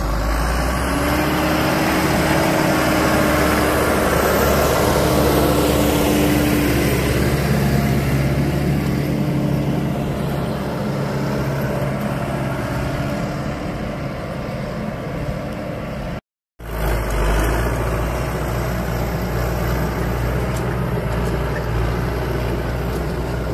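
Farm tractor's diesel engine running steadily under load as it pulls a ripper through dry ground. The sound cuts out for a moment about two-thirds of the way through.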